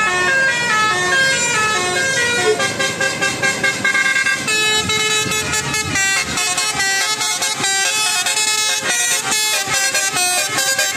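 Bus 'telolet' horn, a multi-tone air horn, playing a tune in stepped notes, then switching about halfway through to fast, short, choppy blasts.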